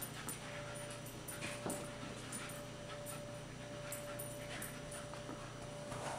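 A dog whimpering softly as two dogs play, with scattered faint short clicks.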